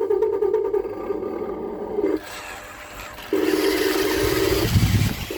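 Electric motors of a Huina 1593 RC excavator whining in on-off bursts as its controls are worked: one run of about two seconds, a pause, then another from about three seconds in. A low scraping rumble near the end, the bucket digging into sand.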